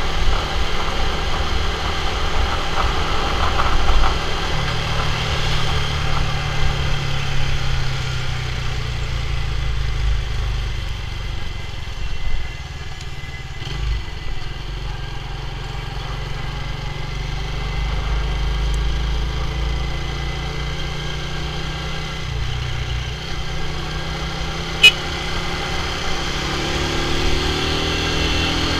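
Motorcycle engine running as the bike rides along at a steady pace. A single sharp click comes near the end, and then the engine pitch rises as the bike speeds up.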